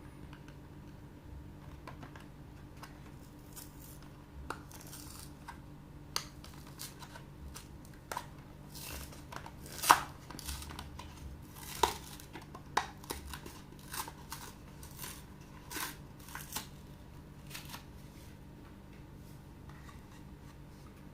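Toy packaging being torn open and handled by hand: scattered rips, crinkles and sharp clicks, the loudest about ten and twelve seconds in.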